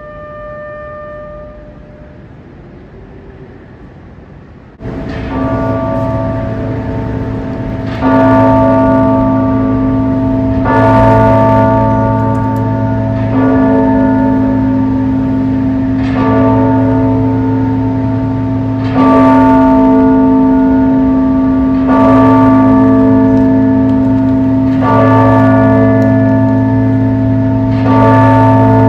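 A large bell tolling slowly, starting about five seconds in with about nine single strokes, one every three seconds or so, each ringing on into the next. Before it, a few held notes of a wind instrument fade out in the first moments.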